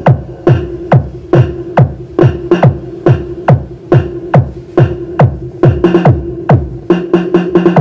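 Electronic dance remix played loud through a Storm Quake 15-inch 2000-watt speaker on sound test: a steady beat of deep kick drums that drop sharply in pitch, about two a second, over a held synth note.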